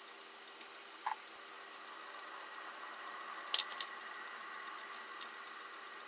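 Light clinks of a metal spoon against a ceramic plate as potato salad is pressed into cucumber rings: one about a second in and a quick pair or three at about three and a half seconds. A faint, steady hum sits underneath.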